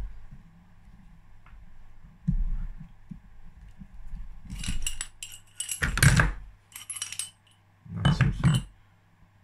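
Steel tools clinking and rattling on a small bearing-extractor kit as a spanner works the puller's nut and the clutch-arm needle bearing is drawn out of the motorcycle crankcase. A few dull knocks come first, then clusters of sharp clinks, the loudest about six seconds in and another just past eight seconds.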